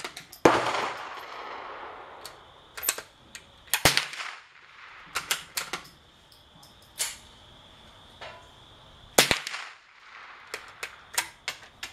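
.22 rimfire gunshots: about fifteen sharp cracks at irregular intervals, some coming in quick pairs. The loudest is about half a second in and has an echoing tail.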